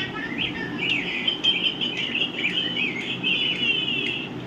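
Small birds chirping and twittering, several calling over one another in quick short trills, over a low steady background hum.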